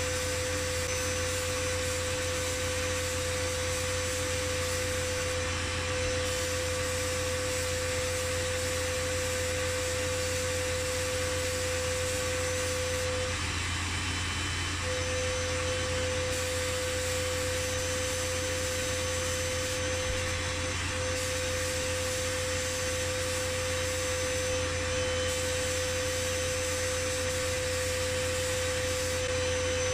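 Media blasting cabinet running: a steady hiss of the blast nozzle and air over a low hum, with a steady whine that breaks off briefly about halfway through. The blasting is stripping old blue paint and rust from a round metal camping-stove part.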